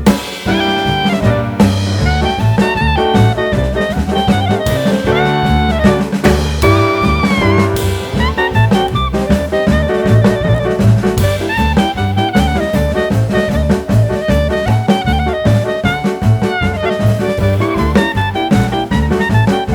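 Jazz music with a saxophone melody over bass and a drum kit.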